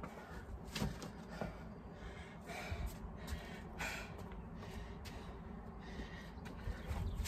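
A man breathing hard while he recovers between exercises, with a few sharp gasps and exhales.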